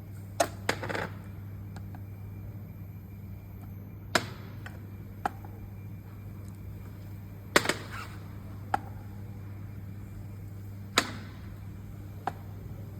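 Cough syrup bottle packing machine running: a steady motor hum with sharp mechanical clacks every few seconds, some in quick pairs or threes.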